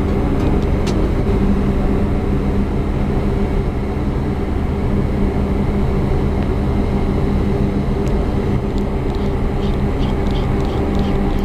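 Steady low drone of a large engine running at constant speed, with a few light clicks near the start and toward the end.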